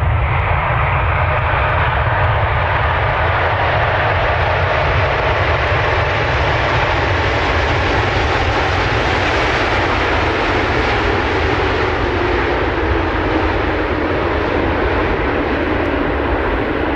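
Airplane engine noise, loud and steady, with a faint tone that slowly drops in pitch in the second half.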